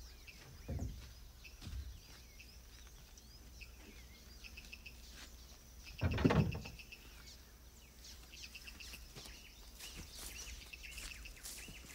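Forest ambience with birds chirping and trilling over and over, and one short thump about halfway through.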